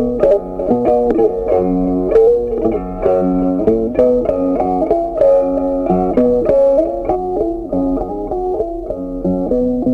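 Background music led by a plucked guitar-like instrument playing a steady run of notes.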